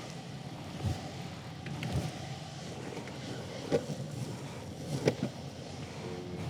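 Longboard wheels rolling on pavement: a steady low rumble broken by a few sharp knocks.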